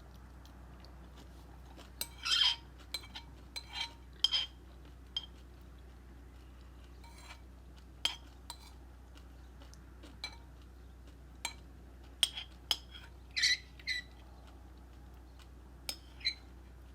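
A spoon clinking and scraping against a cereal bowl in short, irregular strokes while scooping up the last bites.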